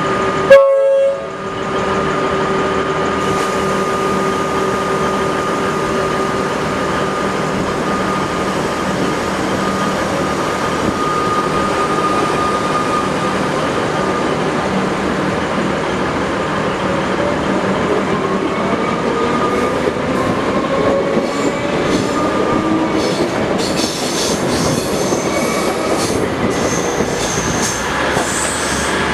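Melbourne Metro suburban electric train running past along the platform and pulling away, with a short loud horn blast about half a second in. Its motor whine rises in pitch as it gathers speed, and sharp wheel squeals and clicks from the rails come in over the last several seconds.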